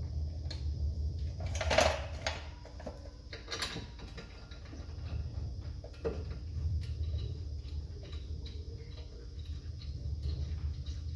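Scattered sharp clicks and knocks of tools and parts being handled during brake work, the loudest about two seconds in, over a steady low rumble.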